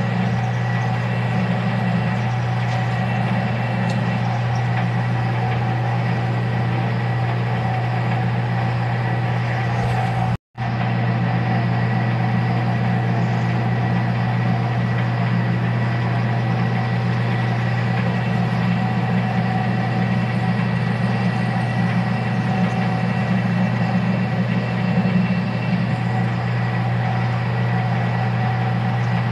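Metal lathe running steadily, its motor and gearing giving a constant hum, while a twist drill in the tailstock chuck drills into the end of the spinning round bar stock for a bushing. The sound cuts out completely for a moment about ten seconds in.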